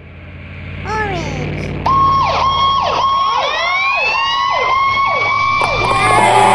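Fire-truck siren over a low engine rumble. A short falling chirp about a second in, then about two seconds in the siren starts: a held tone with quick repeated falling sweeps, getting louder.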